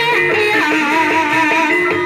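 Continuous live ebeg accompaniment music in the Banyumasan style, with wavering melodic lines over steadily struck notes.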